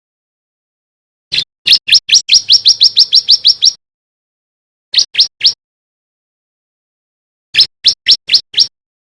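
Male bar-winged prinia (ciblek) singing: a fast run of about fifteen sharp rising chips at roughly seven a second, then a burst of three and later a burst of six, with silent gaps between.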